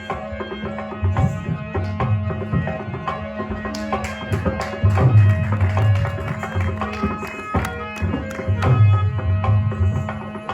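Traditional Rajasthani music played live at a puppet and dance show: hand drums beat a busy rhythm over a steady held drone note, with melody notes above.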